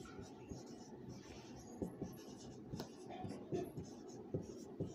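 Marker pen writing on a whiteboard: faint, irregular scratching strokes with a few small taps.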